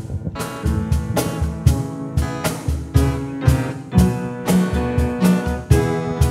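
Church worship band playing the opening of a hymn, with a drum kit keeping a steady beat of about two strikes a second under sustained chords.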